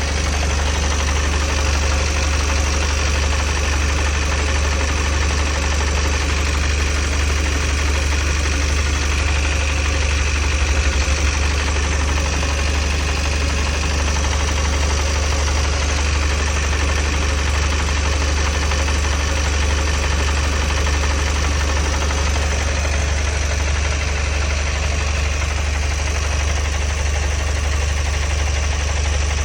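GAZelle Next van engine idling steadily with the van standing, with a knocking rattle that the owner puts down to the gearbox input-shaft bearings, which rattle once the box is warm.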